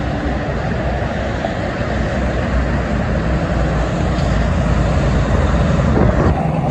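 Dense highway traffic: a steady rumble of trucks and cars with tyre noise, swelling a little near the end.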